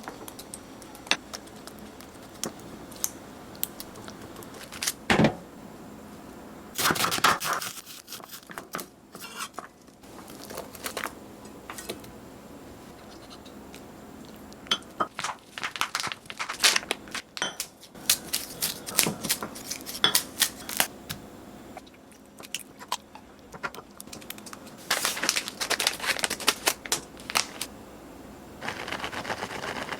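Close-up food-preparation sounds: hands and utensils working ingredients. Scattered sharp taps and clicks alternate with scraping, tearing and rustling, which come in denser clusters about a quarter of the way in, through the middle and near the end.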